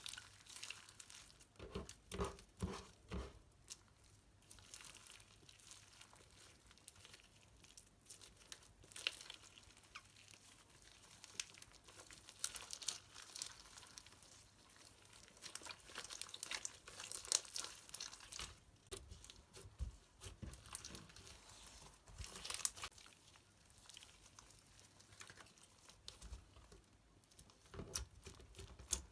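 Slime being pressed, stretched and folded by hand: irregular sticky crackles and small pops, with a few louder squelches about two to three seconds in.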